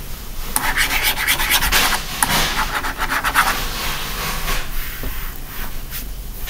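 Stylus scratching and rubbing across a drawing tablet in quick repeated strokes, busiest in the first half, then fainter.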